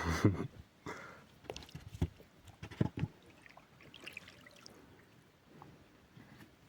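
Water splashing and trickling beside a small boat, with a few short knocks about two and three seconds in.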